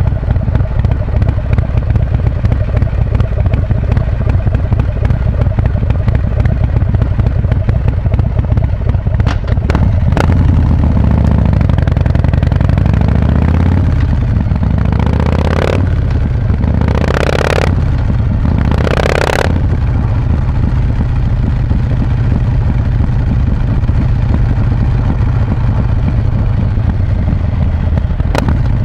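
2019 Harley-Davidson Breakout's Milwaukee-Eight V-twin, fitted with an S&S 475 cam and a Vance & Hines exhaust with quiet baffles, running on the road. The engine note shifts about ten seconds in, and a few seconds later three short bursts of rushing noise pass over it.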